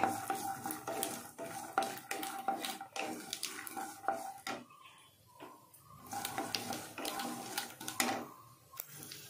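Wooden spatula stirring and scraping peanuts and mustard seeds in hot oil in a non-stick kadai, with sizzling and many sharp clicks of the spatula against the pan. It goes quieter for a moment about halfway, then the stirring picks up again.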